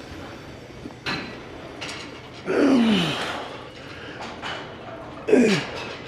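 Two short vocal sighs from a person, each sliding down in pitch, about two and a half and five seconds in, with a single sharp knock about a second in.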